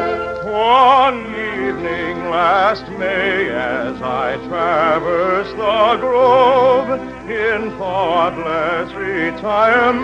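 Soprano singing an operatic song with a wide, regular vibrato, phrase after phrase, over an orchestral accompaniment.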